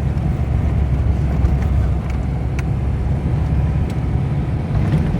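Vehicle interior noise while driving on a rough forest road: a steady low engine and road rumble with a few faint light rattles.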